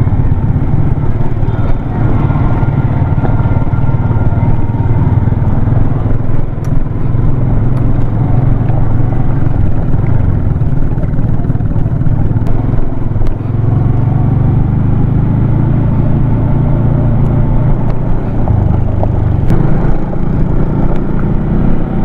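Motorcycle engine running steadily while it is ridden over a rough gravel road, with the rumble of the ride on the handlebar-mounted microphone.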